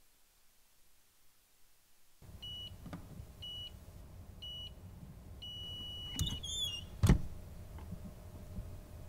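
Clamshell heat press control beeping: three short beeps about a second apart, then one long beep as the timer runs out. A brief squeak and a single loud clunk from the press follow.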